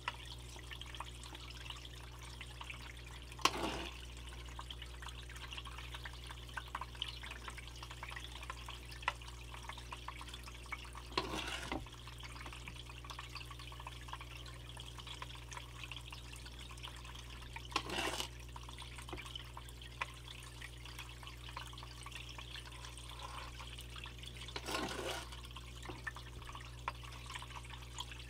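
Water sloshing and trickling as gold paydirt is panned, with four louder splashes about seven seconds apart.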